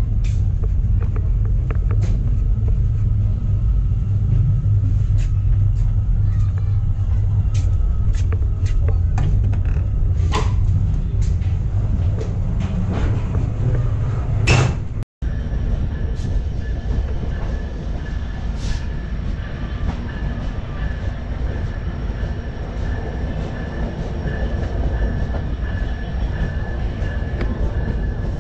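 Running noise of a moving Chinese-built passenger train coach: a steady low rumble with scattered sharp clicks and knocks. After a break about halfway through, the rumble goes on with a thin, steady whine over it.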